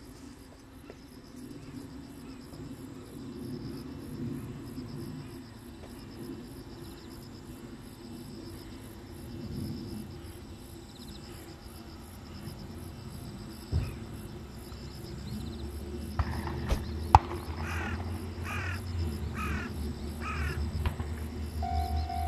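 Insects chirping in a fast, even pulse, with a low rumble rising in the second half and a few sharp clicks in the middle.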